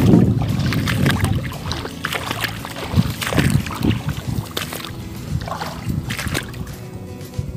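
Wind rumbling on the microphone for the first second or so, then faint background music comes in under scattered sharp clicks and light splashes.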